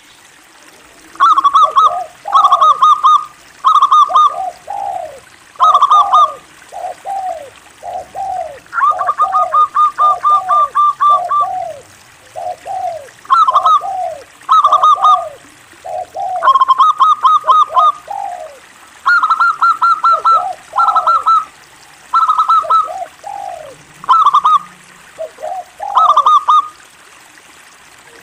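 Zebra dove (perkutut) singing its cooing song: short phrases of quick coos that rise and fall, repeated every second or two, with a higher run of rapid notes over them.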